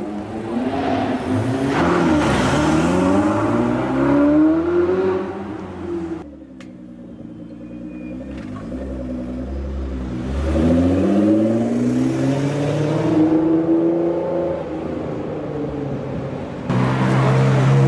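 Ferrari 488 Spider's twin-turbo V8 accelerating hard, its pitch rising through the gears. This is followed by a modified Nissan GT-R's twin-turbo V6 slowing, then accelerating again in long rising sweeps.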